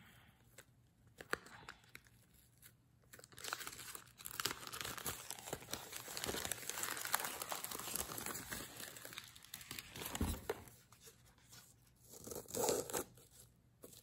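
Paper rustling and crinkling as a white paper sleeve is slid off a small cardboard gift box and handled. It is loudest and most continuous from about three to nine and a half seconds in, with a few short rustles near the end.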